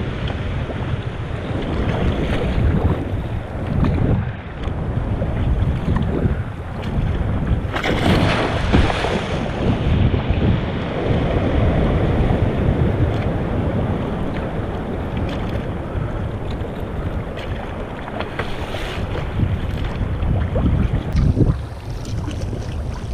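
Wind rumbling on the microphone over sea water splashing and sloshing around a kayak out in a swell, with a louder rush of splashing about eight seconds in.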